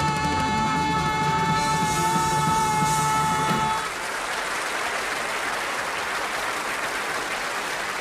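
A band holds the song's final chord, which stops about four seconds in, and studio audience applause follows.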